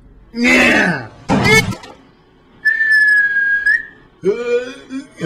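Dubbed mouth sound effects: two sharp, breathy grunts, then a held whistled note lasting about a second, then a short voiced vocal sound whose pitch falls and rises.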